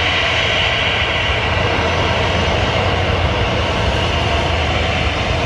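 Airbus A320 jet engines running steadily as the airliner taxis along the runway: an even rumble under a broad hiss.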